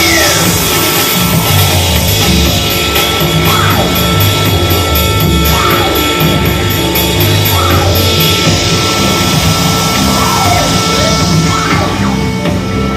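Live improvised electronic noise music on synthesizers. Falling pitch sweeps recur about every two seconds over a held high tone and a stepping bass line, with a fast high ticking that stops partway through.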